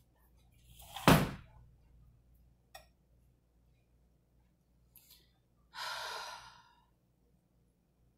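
A woman's breathing: a sharp exhale about a second in, the loudest sound, and a long sigh about six seconds in, with a couple of faint clicks between.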